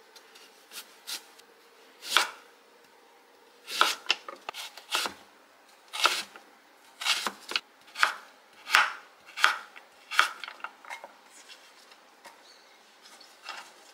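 Chef's knife chopping a Korean radish on a wooden cutting board: about a dozen sharp knife strokes through the board, cutting the radish into finger-sized sticks, with only faint taps near the end.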